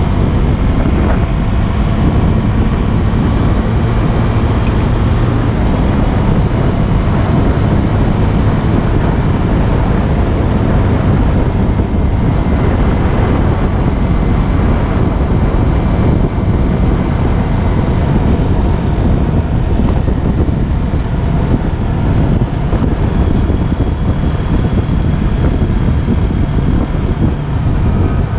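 Wind buffeting hard on an unshielded action-camera microphone on a moving motorcycle, over the KTM Duke 125's single-cylinder four-stroke engine running at a steady cruise. The engine note is clearest in the first few seconds, then sinks further into the wind noise.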